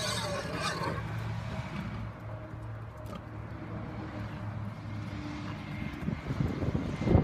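A steady low engine hum that fades out after about five seconds, with a brief wavering higher-pitched sound at the very start.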